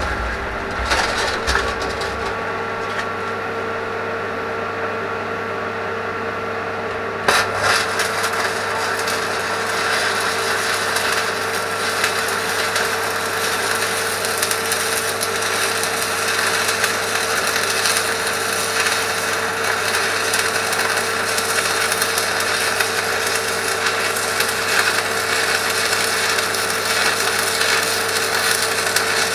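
An electric power tool running steadily with a constant whine. There is a sharp knock about seven seconds in, after which it runs a little louder.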